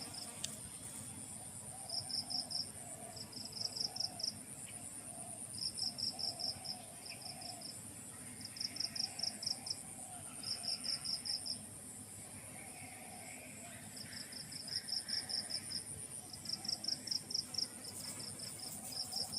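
Crickets chirping: one sings short trains of rapid pulses, a handful at a time with irregular pauses, over a steady, higher-pitched insect trill.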